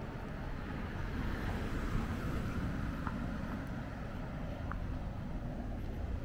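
Street ambience: a steady low rumble of traffic that swells for a couple of seconds about a second in, with a few faint ticks.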